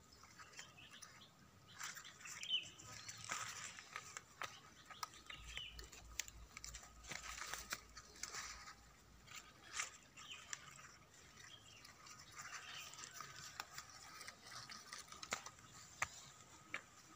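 Faint rustling and crisp crackling of bok choy leaves and stems as the plants are pulled and gathered by hand, in scattered short clicks.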